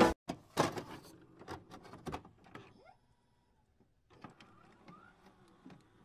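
Faint electronic sound effects of a loading-screen animation: scattered clicks and a few short chirping pitch sweeps. They are densest in the first second and thin out after that.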